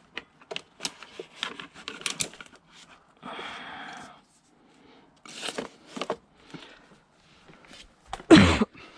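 Plumbing parts being rummaged through: small fittings clicking and rattling, a scraping rustle about three seconds in, and a loud thump near the end.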